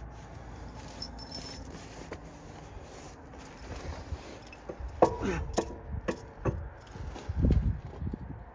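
Metal parts of a snowplow shoe mount clinking and knocking as they are worked by hand, with a cluster of four or five sharp clinks past the middle. Jacket fabric rubs and bumps against the microphone near the end.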